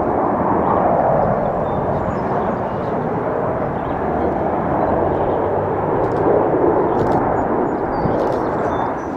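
Aircraft engine noise: a loud, steady rumble of an aircraft flying over, swelling twice and easing slightly near the end.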